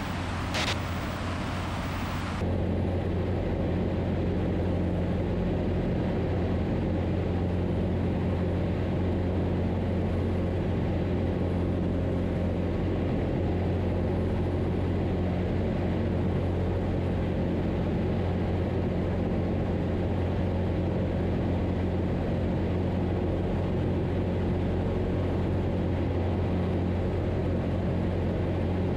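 Zenith CH 750 Cruzer's engine and propeller droning steadily in cruise flight. For the first two seconds there is brighter wind hiss, after which the drone is duller, as heard inside the cabin.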